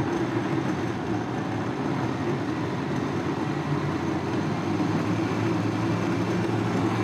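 Electric countertop blender running steadily at speed, its motor and blade blending milk and bananas into a milkshake.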